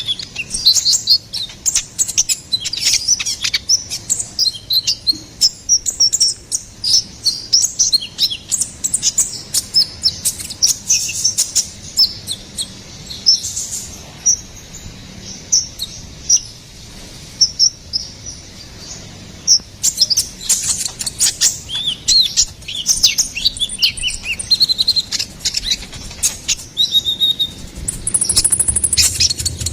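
Konin (kolibri ninja) bird calling in a fast, continuous stream of short, high-pitched chirps and twitters, broken by sharp clicks. A thin, steady high whistle comes in briefly near the end.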